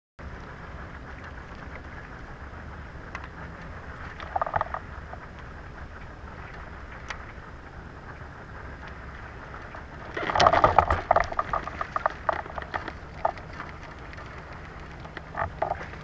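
Steady water and wind noise on a kayak-mounted action camera. Over it come short bursts of rapid knocking and clattering from the fishing kayak and its gear, the loudest and longest about ten seconds in, with smaller ones near four and fifteen seconds.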